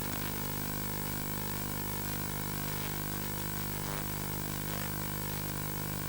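A steady low droning hum of several held tones over a constant hiss, unchanging throughout.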